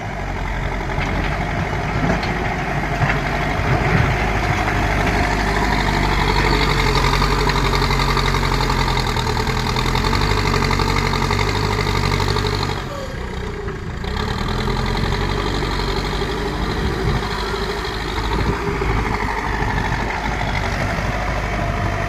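A backhoe loader's diesel engine running steadily, with a brief drop in level about thirteen seconds in.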